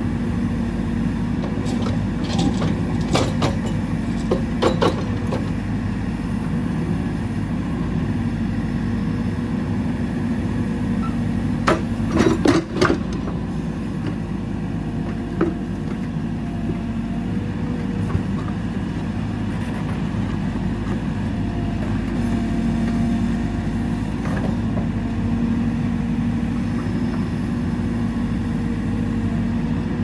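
JCB 4CX backhoe loader's diesel engine running steadily under load as the backhoe digs and swings. A few sharp clanks come a few seconds in, and a louder cluster about twelve seconds in.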